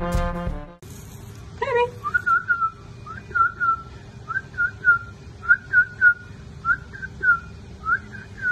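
A person whistling short sliding notes in quick little groups of two or three, after one fast rising whistle. Brass-band music plays for the first moment and cuts off.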